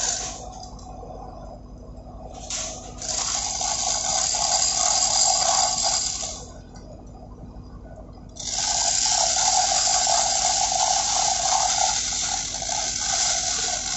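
Hand chain of a manual chain block rattling through the hoist as it is hauled, in two long runs, about three seconds in and again from about eight seconds until near the end, with short rattles between.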